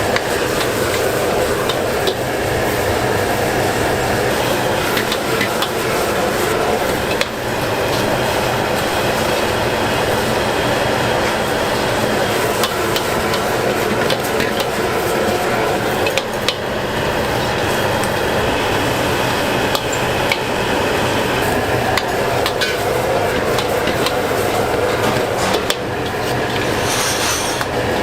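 Commercial kitchen cooking noise: a steady roar, with metal utensils clicking and scraping against cookware.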